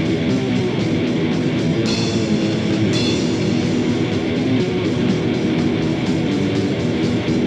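Live heavy metal band playing: distorted electric guitar riffing over a drum kit with a fast, steady beat.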